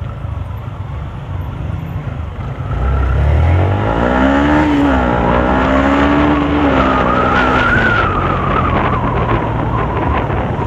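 Motorcycle engine accelerating under the rider, its note rising about three to four seconds in and then holding high, over steady road and wind rumble.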